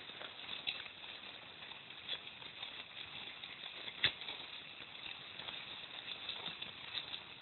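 Footsteps crunching on packed snow in an uneven rhythm, with camera handling rustle and one sharper click about four seconds in.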